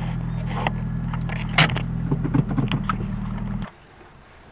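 Car engine idling, heard from inside the cabin, with a few clicks and knocks over it; the engine is switched off and cuts out abruptly about three and a half seconds in.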